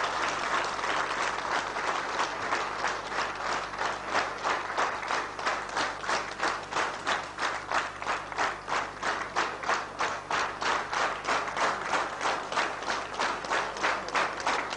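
Audience in a hall applauding. The scattered clapping falls into rhythmic clapping in unison about two seconds in, at roughly three claps a second.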